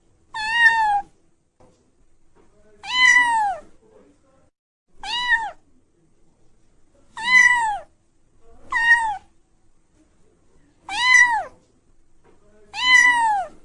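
Cat meowing, seven high-pitched meows about two seconds apart, each rising and then falling in pitch.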